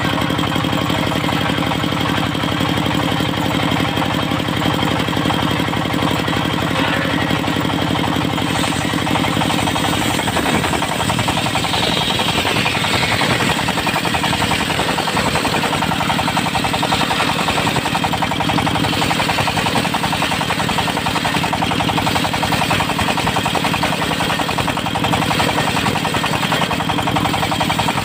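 Diesel engine of a mobile circular sawmill running steadily with a fast knocking beat.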